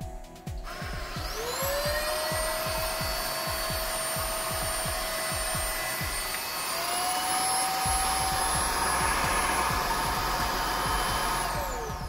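Puweike P80 cordless stick vacuum switched on about a second in: its motor spins up to a steady high whine, steps up to a higher pitch about halfway through, and winds down near the end. Background music with a steady beat plays underneath.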